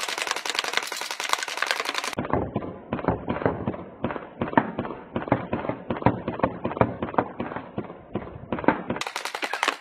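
Battery-powered airsoft H&K UMP firing rapid full-auto strings, a fast run of sharp clicks. From about two seconds in until near the end the sound turns duller and deeper, then goes crisp again.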